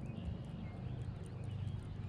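Small waves lapping and knocking against a kayak hull, with birds chirping now and then.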